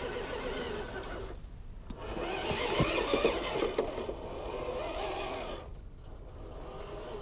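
Electric motor and gearbox of a scale 6x6 RC truck whirring as it drives over dry leaves and grass, dropping out twice for a moment. Around the middle it gets louder, with crackling clicks as the tyres roll over leaves and twigs.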